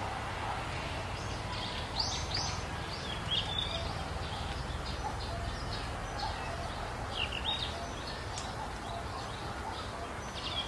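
Small birds chirping in many short, high calls over a steady low background noise.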